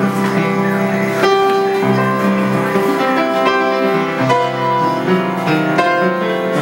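An upright piano being played: a melody over held chords, with new notes struck every half second to a second.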